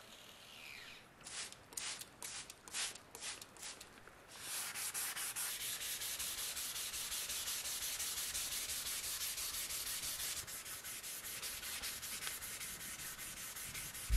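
Sandpaper pulled by hand across a steel hammer head, shoeshine-style, to smooth the metal. It starts as a run of separate strokes and, after about four seconds, turns into fast, continuous back-and-forth rubbing.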